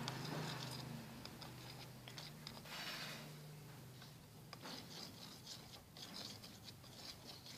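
Faint, irregular sounds of thick shampoo-and-salt slime being worked in its container, with small clicks scattered through.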